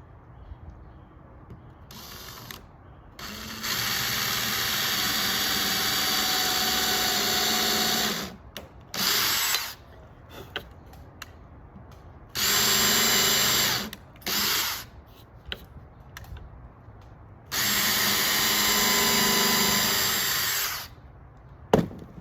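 Power drill running a countersink bit into deck wood in several bursts of steady motor whine: a run of about five seconds, a few shorter runs, and a run of about three seconds near the end. It is boring a countersunk pilot hole so a flat-head screw will sit flush without splintering the wood.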